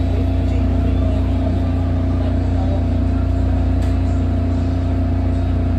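Steady deep rumble and hum inside a SEPTA Market-Frankford Line train car, with two unchanging tones over the low drone.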